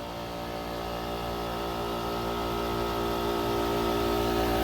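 Rheem Classic 7.5-ton commercial air conditioner condensing unit running: a steady machine hum made of many even tones, growing gradually louder.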